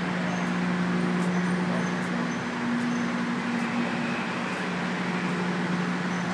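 Steady industrial machinery running in a grain load-out building, a constant hum over a noisy drone, with a second higher hum strengthening for a second or two midway.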